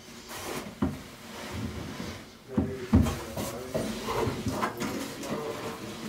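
Handling noises in a small wooden cabin: a few clunks and knocks, the loudest about three seconds in, with rustling in between.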